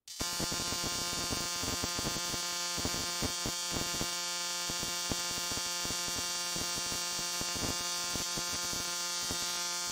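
High-voltage spark from a 2.7-litre V6 Hyundai Sonata ignition coil, pulsed by a 555-timer driver circuit, arcing continuously across an adjustable spark tester gap: a steady buzz with irregular crackling snaps. The strong, steady spark shows plenty of power at the coil's output, so the coil is good.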